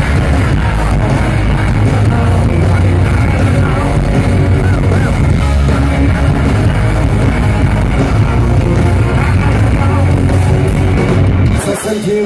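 Live rock band playing loud, with a male singer over electric guitars, bass guitar and drums. The band cuts off suddenly near the end.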